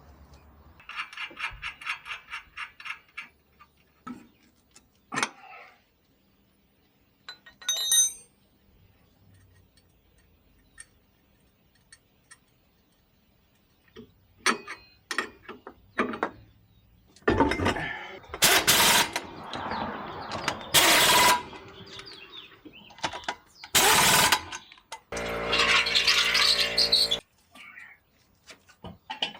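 Tool work on suspension bolts. A ratchet clicks rapidly for a couple of seconds near the start, with scattered metal clinks after it. In the second half come several loud bursts from a power tool, the longest near the end.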